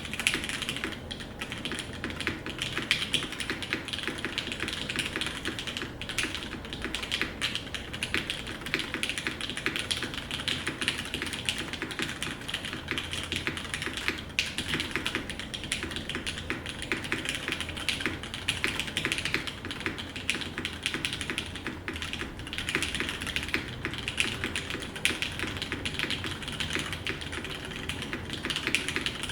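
Continuous typing on a custom mechanical keyboard with an aluminum plate, lubed New Nixie switches, GMK keycaps and TX stabilizers: a dense, unbroken stream of key clacks, with a few strokes louder than the rest.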